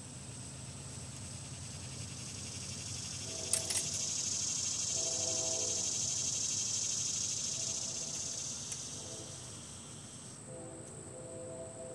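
Outdoor insect noise: a steady high-pitched trill, joined by a louder, hissing insect song that swells and then stops abruptly about ten seconds in. A low buzzing hum comes and goes a few times, with a couple of sharp clicks near the start of the swell.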